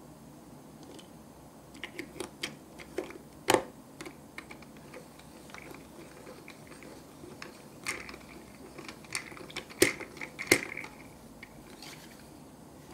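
Parts of a small hard-plastic toy machine being handled and fitted together: scattered light clicks and taps, with sharper clicks about three and a half seconds in and twice near ten seconds.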